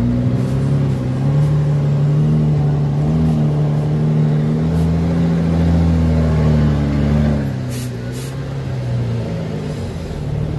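Truck's diesel engine heard from inside the cab while driving slowly, its note rising and falling a little with the throttle. About seven and a half seconds in the engine eases off, and two short hisses follow.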